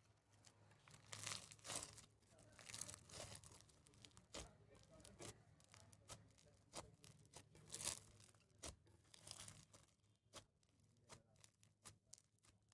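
Crunchy slime full of floam beads being squished and stretched by hand: faint, irregular crackling and crinkling, densest from about a second in and thinning to scattered pops for the last few seconds.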